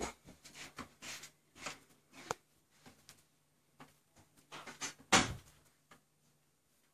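Faint, uneven wooden clicks and knocks from a weight-driven pendulum clock whose gears, escapement wheel and escapement are all made of wood, ticking as it runs. There is a louder, longer scuffing knock about five seconds in.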